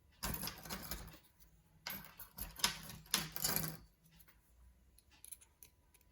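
Small metal parts and tools being handled on a lock cylinder: two spells of scraping and rattling, then a few light clicks, as the retaining clip is worked off the back of an Assa oval euro cylinder.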